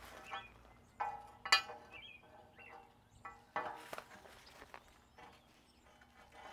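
Metal clanking in a workshop: a few sharp knocks and clinks of steel being handled, some ringing briefly, loudest about a second and a half in and again near the middle.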